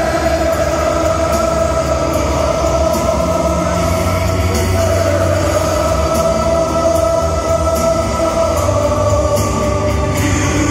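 A stadium crowd of football fans singing together in unison, thousands of voices holding long drawn-out notes, loud and steady.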